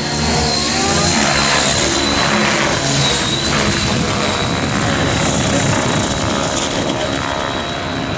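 Align T-Rex 700E DFC electric RC helicopter with an Align 800MX motor flying: steady rotor noise with a high motor whine, its pitch sliding up and down in the first second or so.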